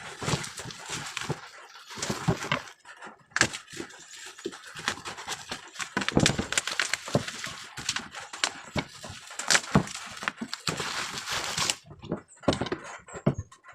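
Packaging being handled during an unboxing: irregular rustling with scattered knocks and clicks as the box and its contents are moved about.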